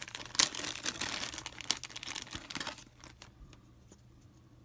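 Small clear plastic parts bag crinkling and crackling as hands open it and pull out a resin part. The crinkling stops about three seconds in, leaving a few faint clicks.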